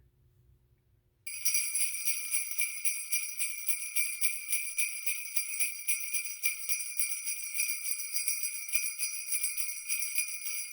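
Sleigh bells jingling in a steady, rapid shake, starting about a second in after a moment of near silence.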